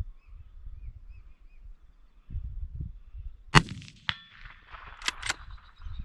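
A single rifle shot a little past halfway, followed about half a second later by a short metallic ping with a ringing tone, as from a hit steel target, then two sharp metallic clicks close together, over wind rumble.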